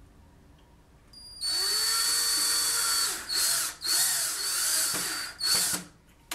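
DeWalt cordless drill driving a small screw into a wooden base, with a high motor whine. One long run starts about a second and a half in, then three shorter bursts follow, and it stops shortly before the end.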